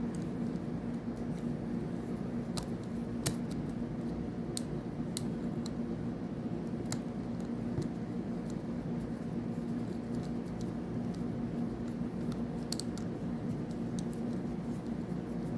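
Scattered small metallic clicks and scratches of a small screwdriver working the tiny side screws out of a fishing reel, the sharpest click about three seconds in, over a steady low hum.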